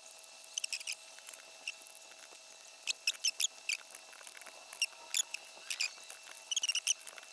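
FrSky Taranis radio transmitter, its keys pressed and its menu scrolled: irregular runs of short, high clicks, busiest from about three seconds in.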